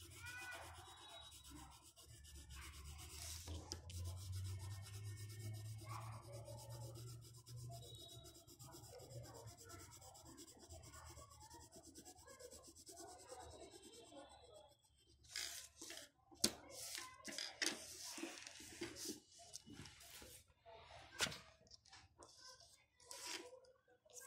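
Pencil and hand rubbing across drawing paper, a faint, scratchy shading sound. In the second half there are several sharp taps and paper-handling knocks.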